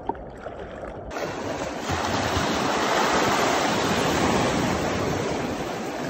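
Sea surf washing and splashing over a low rocky shelf at the water's edge, rising from a muffled wash to a loud steady rush about a second in.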